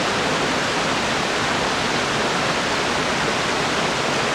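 Fast-flowing river rushing over granite close by, a steady, unbroken rush of water.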